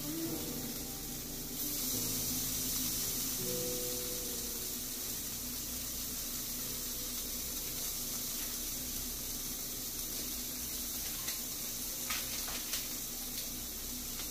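Tofu and vegetable kabobs sizzling on an electric countertop grill: a steady hiss that grows a little fuller early on, with a few light clicks near the end.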